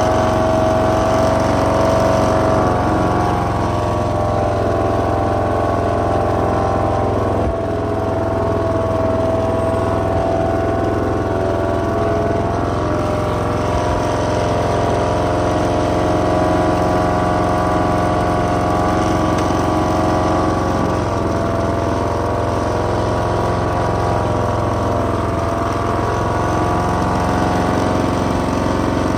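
Husqvarna Rider 970 ride-on mower's engine running steadily as the mower drives over the lawn.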